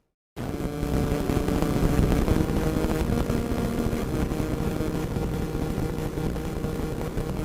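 Radio static with crackles and a steady hum underneath, cutting in abruptly after a brief silence a moment in and then running on evenly.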